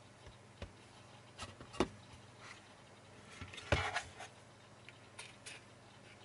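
Handling noise from the open sheet-metal case of a mini PC being gripped and shifted: a few light knocks with faint scraping between them, the loudest knock a little past halfway.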